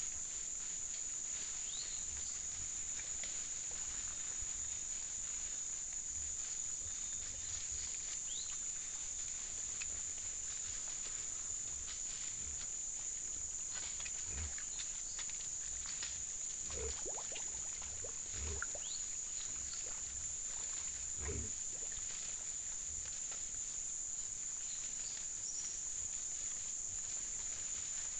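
A herd of peccaries foraging, with scattered soft thumps and rustles and a few short grunts in the second half. A steady high-pitched hiss runs underneath.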